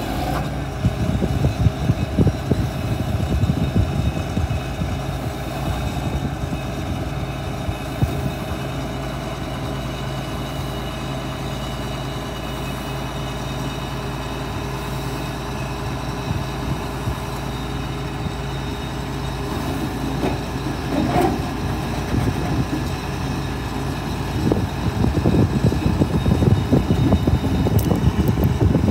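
John Deere combine's diesel engine running at a steady idle, turning louder and rougher about 24 seconds in.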